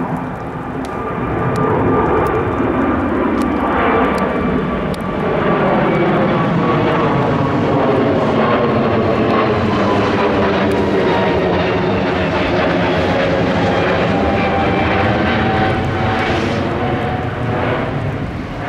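Airbus A320neo's Pratt & Whitney PW1100G geared turbofan engines running at takeoff power: a loud, steady rush of jet noise with several whining tones that slowly fall in pitch.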